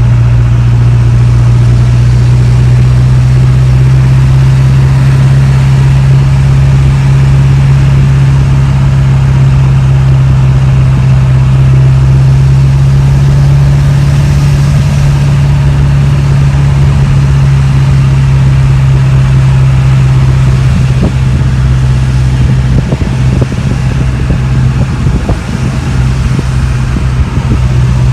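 Inside the cab, a Ford 7.3 Powerstroke turbo-diesel V8 drones steadily under way at an even pace. Several short knocks come in near the end.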